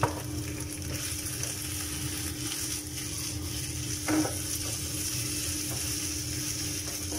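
Minced pork sizzling in a nonstick frying pan, with a steady hiss over a low hum. There is a sharp knock at the start, and a wooden spatula strikes the pan about four seconds in and then stirs and scrapes the meat.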